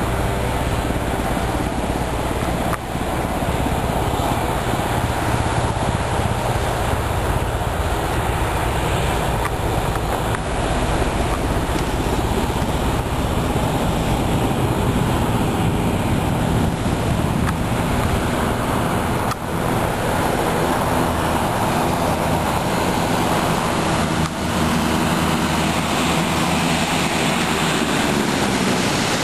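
Engine and pusher propeller of an Aviatika ultralight biplane running steadily at taxi power, a continuous drone; its pitch shifts near the end.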